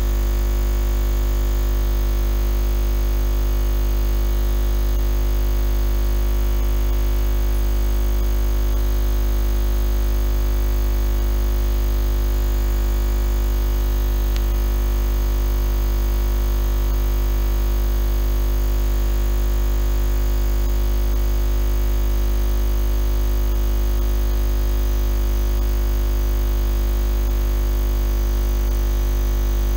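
A loud, steady low hum with many fainter steady tones above it, unchanging throughout.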